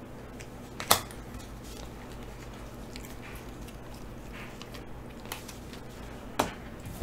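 Glossy Panini Prizm football cards being flipped through by hand, with a few short sharp card snaps and clicks, the loudest about a second in and another near the end.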